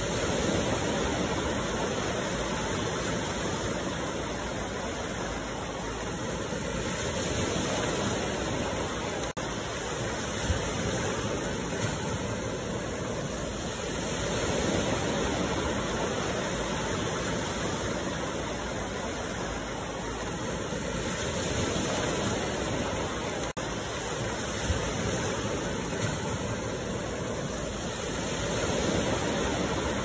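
Small waves breaking and washing up a sandy beach, the surf swelling and easing about every seven seconds.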